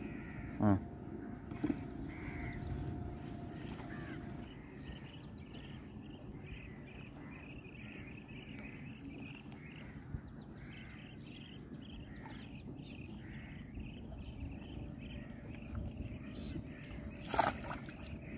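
Many birds chirping faintly over a low steady background noise outdoors, with a short louder sound about a second in and a sharper, louder one near the end.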